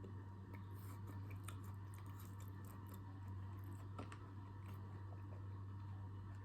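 Close-up chewing and crunching of chocolate-covered fruit: scattered crisp clicks and crackles of the chocolate shell and wet mouth sounds, over a steady low hum.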